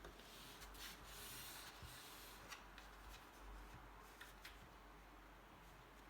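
Near silence: a faint rubbing hiss for about two seconds, then a few light clicks.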